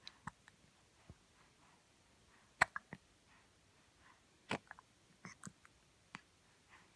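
Baby hiccuping: short, sharp hiccups, the loudest about two and a half seconds in and again about four and a half seconds in, with fainter small clicks between.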